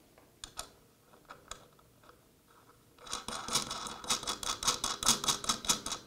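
Steel jam nut being spun by hand up a 10 mm threaded rod on the underside of a digital readout display head: a few light clicks, then from about three seconds in a quick, continuous ticking of several clicks a second as the nut runs up the thread.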